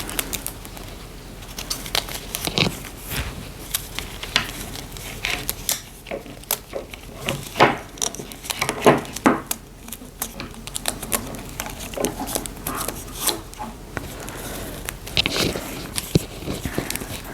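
Close-up handling of a plastic fashion doll while a small t-shirt is worked onto it: irregular rustling of cloth and light crinkling, with many short clicks and taps from the doll's plastic body and limbs.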